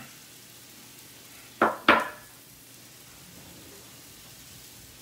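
Two quick knocks about a quarter second apart, a little over a second and a half in: a small glass prep bowl being set down on a wooden countertop. A faint steady hiss lies underneath.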